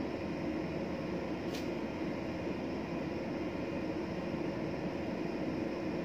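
Steady, even mechanical drone of a ship's machinery and ventilation, heard on the open deck, with one faint tick about a second and a half in.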